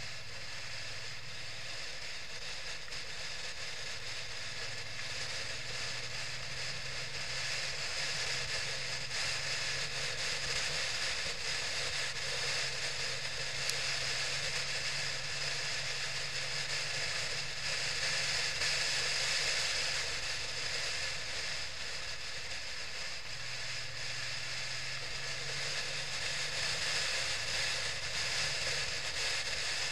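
Motorcycle on the move, recorded from the bike: a steady engine drone under constant wind and road rush, the engine note shifting a little now and then.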